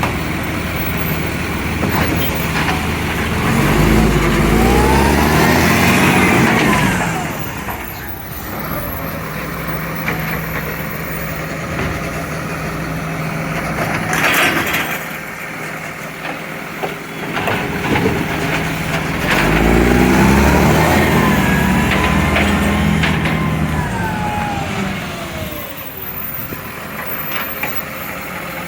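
A garbage truck's diesel engine with a leaking exhaust, idling and twice revving up and back down for a few seconds. A short hiss comes about halfway through.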